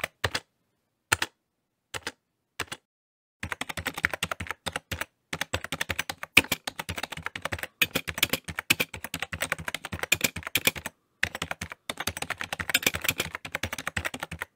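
Keyboard typing: a few scattered key clicks, then rapid, continuous clicking from about three seconds in, with a brief pause near eleven seconds.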